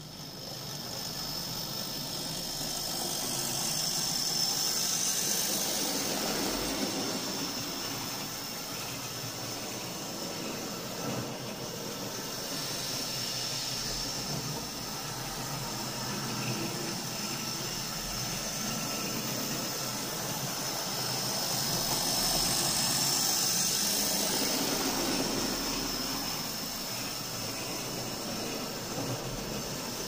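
Hornby pannier tank model locomotive running with a goods train: a steady whirr of its small electric motor with a thin high whine, and the wheels running on the rails. It grows louder twice as the train passes close by.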